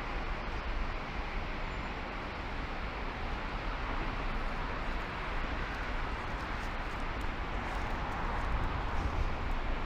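Steady road and wind noise of a car driving, with a constant low rumble.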